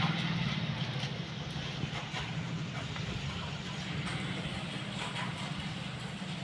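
Diesel engine of heavy construction machinery idling steadily, a low even hum.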